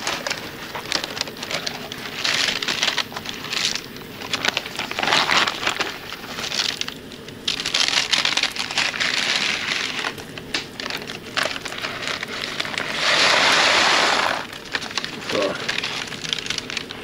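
Pieces of home-dried potato being tipped and shaken into a plastic vacuum-sealer bag: a dry, crinkly rattle of hard pieces and plastic in repeated bursts, the longest and loudest about thirteen seconds in.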